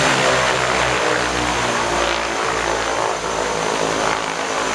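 Twin-engine turboprop airplane's engines and propellers running steadily as it taxis on the apron before its takeoff run.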